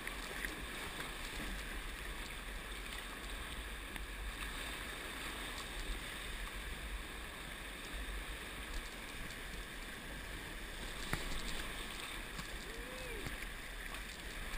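Rushing whitewater of river rapids, a steady wash of churning water around a sea kayak as it runs through standing waves.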